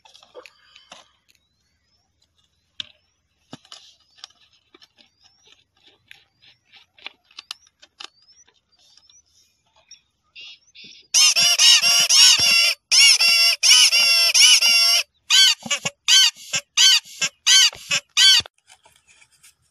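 Toy plastic whistles on the caps of squeezed plastic bottles honking: faint plastic crinkles and clicks at first, then about halfway through a run of loud, wavering, goose-like toots, a few long ones followed by quicker short ones, ending shortly before the end.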